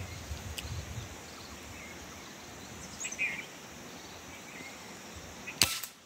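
A single sharp air rifle shot near the end, loud against the steady open-air background. A short high chirp sounds about halfway through.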